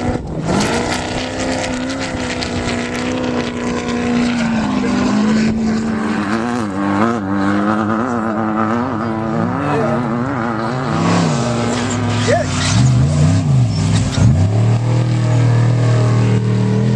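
Vehicle engine running loud and steady, its revs wavering quickly up and down for several seconds mid-way, then dipping and climbing twice before settling into a lower, steady note near the end.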